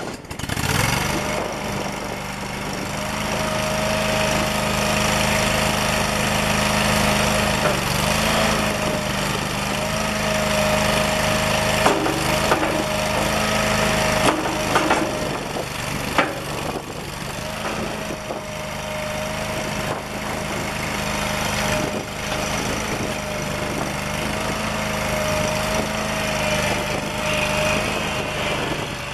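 Toro Dingo TX427 mini skid steer's engine running steadily just after start-up, its pitch wavering slightly now and then, with a few sharp knocks from the machine around the middle.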